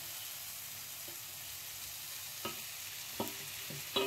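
Onion-tomato masala sizzling softly in a frying pan as fried jackfruit pieces are tipped in from a steel plate and stirred with a wooden spatula, with a few light knocks in the second half.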